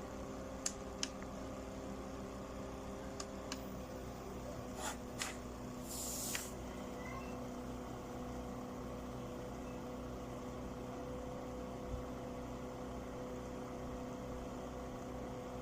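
A small USB ultrasonic humidifier diffuser running with a steady low hum, with a few faint clicks in the first five seconds and a short hiss about six seconds in.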